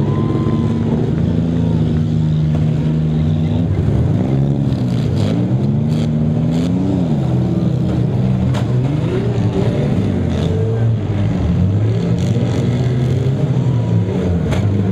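Six-cylinder demolition derby cars running and revving hard, their engine pitch rising and falling, with several sharp crashes as cars ram each other.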